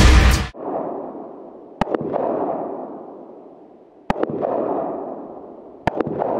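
Short-barrelled 5.56 AR-15-type carbines firing on an open range: three pairs of quick shots about two seconds apart. A long rolling echo dies away after each pair.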